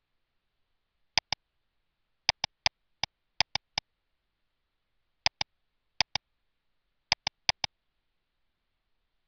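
Computer mouse clicks, sharp and short, about seventeen in quick groups of two to four, as dialog buttons and options are clicked through.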